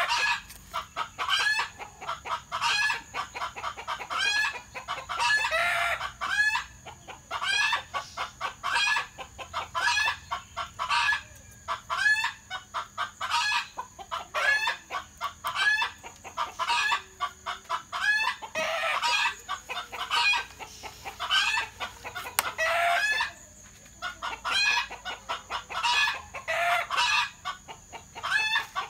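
Chickens clucking in a long, steady series of short repeated calls, about one to two a second, over a steady high-pitched hum.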